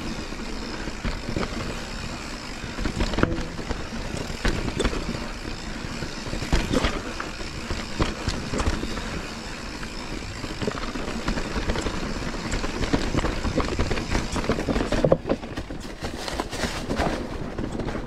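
Mountain bike rolling over a rough, rocky trail: a continuous rattle of tyres and bike, broken by frequent sharp knocks and clacks as the wheels strike rocks.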